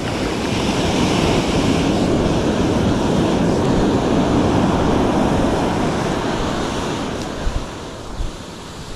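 Ocean surf washing up the beach, the rush of water swelling over the first second or so, holding strong, then easing off as it draws back. Two brief thumps near the end.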